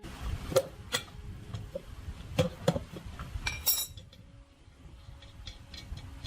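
Metal tools and parts clinking and knocking together: several sharp clinks over the first four seconds, then fainter light ticks.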